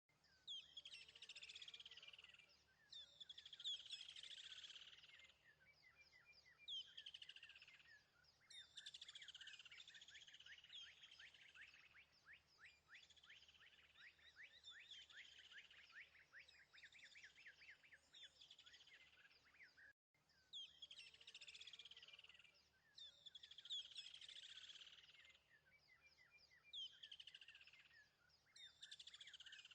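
Faint birdsong: phrases of rapid chirps and trills from several birds. The recording breaks off briefly about two-thirds of the way in and then seems to repeat. A low, faint hum runs underneath.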